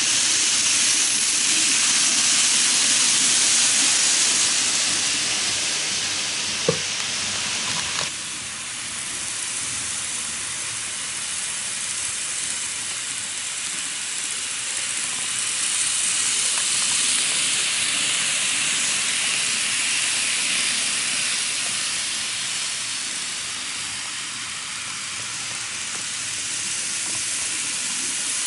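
N-gauge models of a Kintetsu 50000 series Shimakaze and a JR 201 series running on track, a steady hissing whir of motors and wheels on rails that swells and fades as they pass. There is a sharp click about seven seconds in.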